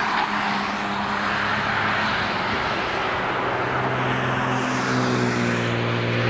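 Cars driving at speed on a race track. First a car goes by with engine and tyre noise that trails off. From about halfway, another car's engine grows louder as it approaches, its note climbing slightly under acceleration.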